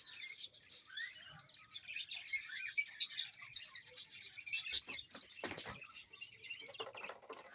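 Small parrots chirping and squeaking in a rapid, busy chatter, with a few sharp clicks or knocks about five seconds in.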